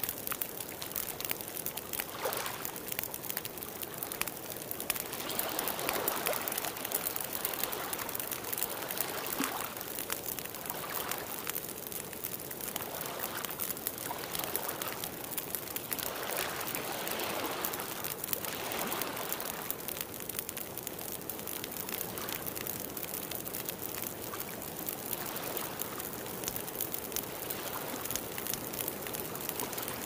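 Wood fire in a fireplace crackling: a dense run of small pops and snaps over a steady hiss, swelling a little at times.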